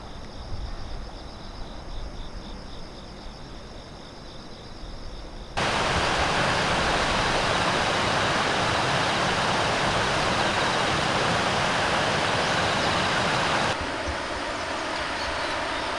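Steady rush of flowing river water, cutting in abruptly about five and a half seconds in and dropping suddenly near the end. Before it comes a quieter stretch with faint high insect chirring.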